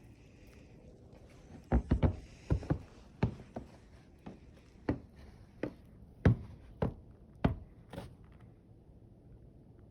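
A series of about a dozen dull thumps: several in quick succession about two seconds in, then single ones spaced a little over half a second apart, stopping about eight seconds in, over a faint steady hiss.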